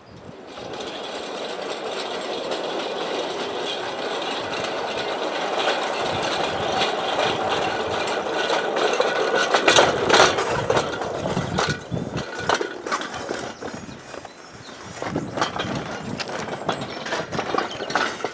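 A small rail vehicle running along newly laid 15-inch gauge track, wheels rattling on the rails with sharp clicks. It is loudest about ten seconds in, dips briefly and picks up again near the end.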